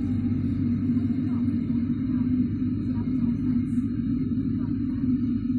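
A Boeing 777-300ER's GE90-115B turbofan engine heard from inside the cabin during start-up: a steady low drone with a strong hum, holding level without rising or falling.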